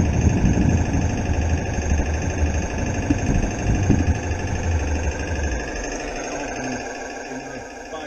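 A 16mm-scale garden railway train running along the track with a steady mechanical hum and a low rolling rumble. The rumble dies away over the last few seconds as the train slows to a stop, and a fainter steady hum carries on.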